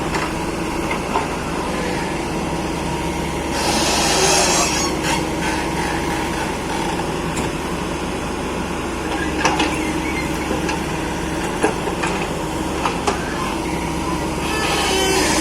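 Excavator's diesel engine running steadily under work, with two spells of hissing, about four seconds in and again near the end, and a few sharp knocks in the second half.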